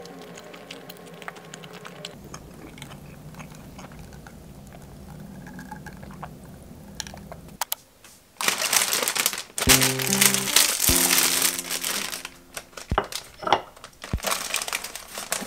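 Light background music; about eight seconds in, a plastic bag of frozen steamed buns starts crinkling loudly in irregular surges as it is opened and a bun is taken out.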